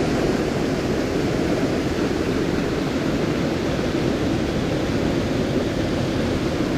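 Steady rushing of a small mountain creek's water running over rocks, an even hiss with no breaks.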